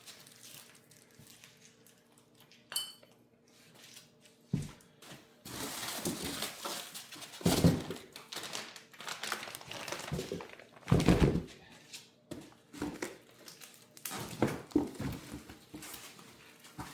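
Bubble wrap and plastic packing crinkling and rustling as metal snow plow parts are unwrapped and handled, with heavy knocks and clanks as the parts are set down. It starts with a single short metallic clink and a thump, and the rustling runs on from about five seconds in.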